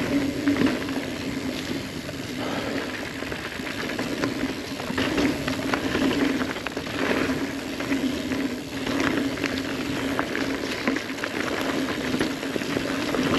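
Ibis Ripley mountain bike rolling fast down a dirt singletrack: continuous tyre noise with a steady hum, and frequent clicks and rattles from the bike over bumps.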